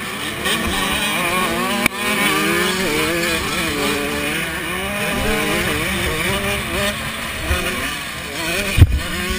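85cc two-stroke motocross bike engine revving up and down as the rider works the throttle and gears, its pitch rising and falling over wind rush on the bike-mounted microphone. A heavy thump near the end.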